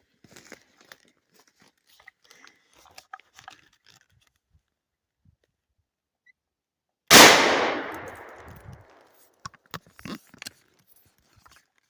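A single gunshot about seven seconds in, its report echoing and dying away over about two seconds. Faint rustling comes before it and a few short clicks after.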